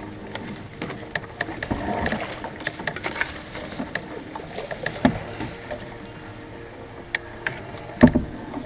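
Canoe being paddled in shallow water: paddle strokes splashing, with many sharp knocks and clicks against the canoe, and one louder thump about eight seconds in.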